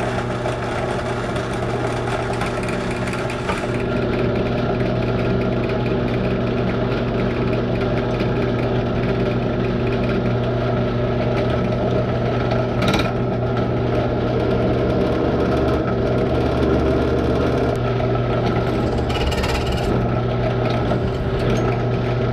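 Electric drill running steadily, drilling out the leftover nut of a stripped bolt, with a short sharp noise about thirteen seconds in.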